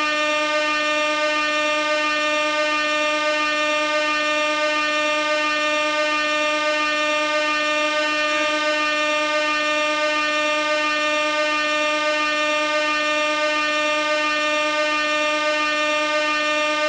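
Compressed-gas air horn sounding one continuous, unbroken blast at a single steady pitch, loud and rich in overtones.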